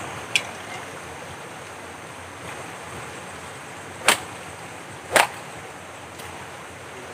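Two loud, sharp cracks about a second apart, past the middle, after a lighter click just after the start, over a steady hiss.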